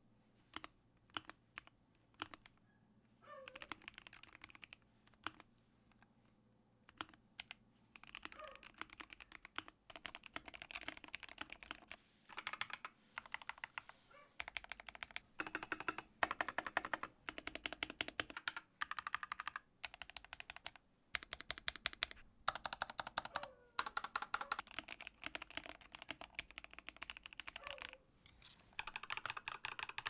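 Mechanical keyboards typed on in bursts of rapid clacking keystrokes with short pauses between: first a Gamakay K61 with lubed Gateron Yellow switches and XDA keycaps, later a second board. Dogs bark faintly in the background a few times.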